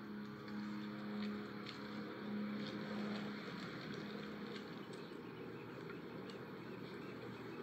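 Recorded horn of the cruise ship Ovation of the Seas holding one long, low blast that fades out about four seconds in, leaving steady background noise.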